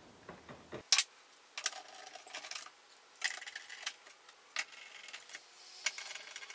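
The PC's hinge assembly being fitted and handled against the case: a series of sharp clinks and clatters in small clusters, the loudest about a second in.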